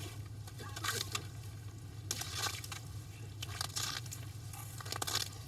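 Crunching and scraping on snow and ice in a few irregular strokes, over a steady low hum.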